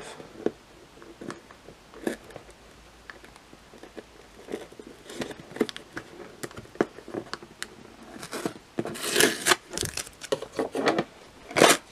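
Fingernail picking and scratching at a clear tape seal on a cardboard box, with scattered small clicks, then a longer stretch of tearing and crinkling about nine seconds in as the tape peels away, and a sharp crackle near the end.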